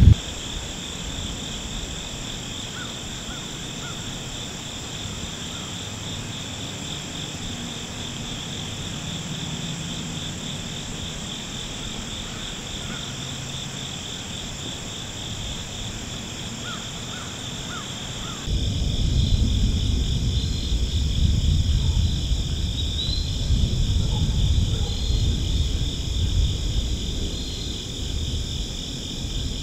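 Steady chorus of insects, crickets or katydids, trilling high and continuously. From about 18 seconds in, a low rumble of wind on the microphone joins it and the whole gets louder.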